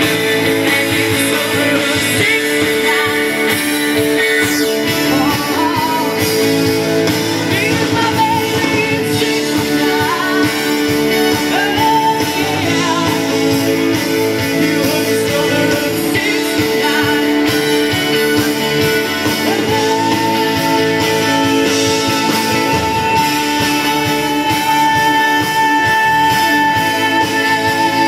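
Live band playing amplified music through outdoor stage loudspeakers, with guitar and a singing voice.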